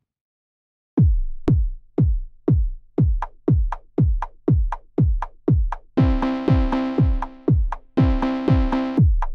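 Self-made electronic techno music. About a second in, a drum-machine kick drum starts beating steadily about twice a second, each hit dropping in pitch. About six seconds in, a sustained synthesizer chord joins it.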